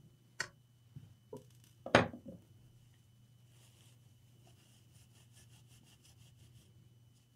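Handling noises on an electronics repair bench: a sharp click, a couple of small knocks and a louder clunk about two seconds in. A faint run of quick rubbing ticks follows, about four or five a second, over a steady low electrical hum.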